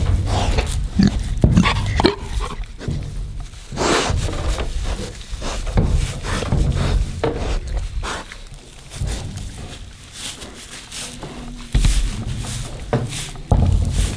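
Pig vocalizing in short, irregular bursts.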